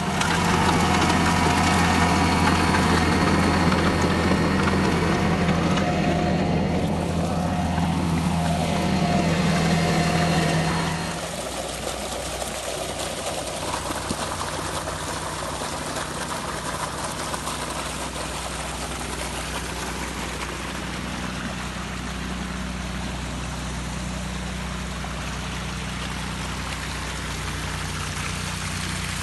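Compact tractor engine running under load as its chain trencher cuts a drainage trench through turf and soil, for about the first eleven seconds. Then muddy water rushes steadily down the freshly cut drain channel as the flooded bunker empties, with a low steady hum underneath.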